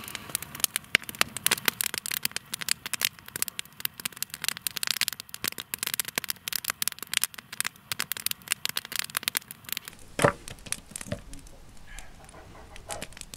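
Dense, irregular crackling and clicking, many sharp snaps a second. About ten seconds in it gives way abruptly to a quieter low rumble with a few separate knocks.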